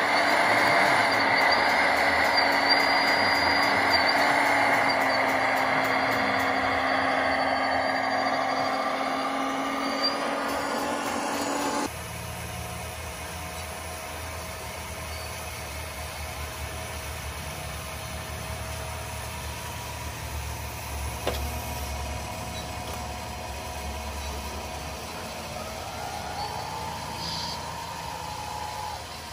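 Loud whirring of a radio-controlled excavator's hydraulic pump and motors, which stops abruptly about twelve seconds in. After that, a quieter low rumble and motor whine from a radio-controlled tractor pulling a tipping trailer, with a rising whine near the end.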